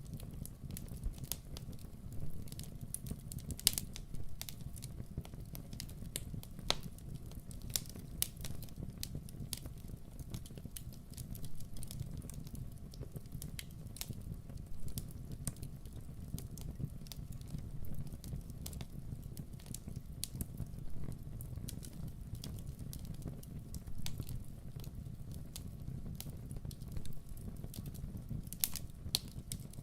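Campfire burning and crackling: irregular sharp pops and snaps over a steady low rumble of the flames.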